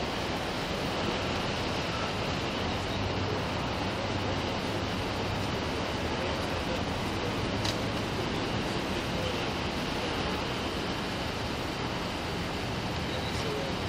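Steady rushing roadside noise picked up by a police body camera's microphone: passing traffic and wind, with no distinct event.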